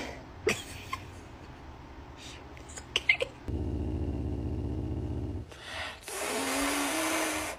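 Caracal giving a low rumble for about two seconds, then hissing with its mouth open, a hiss with a low growl running through it, which cuts off near the end.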